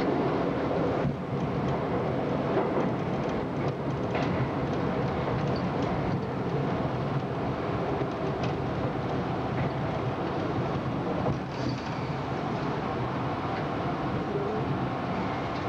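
R32 subway car running at speed, with a steady rumble of wheels on rail and motor noise and a few faint clicks along the track.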